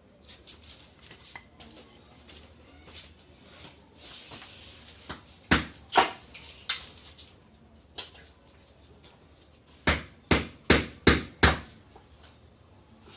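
Metal knocks and clinks from work on a pressure-washer pump: a few scattered knocks, then five strong, evenly spaced blows in quick succession, about three a second, near the end.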